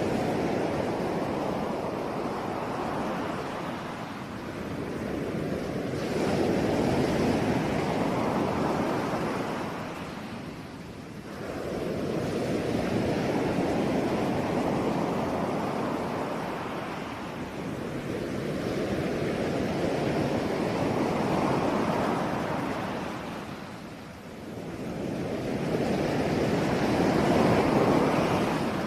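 Ocean waves rolling in and washing up on the shore, the surf swelling and falling back every several seconds, with two deeper lulls between sets.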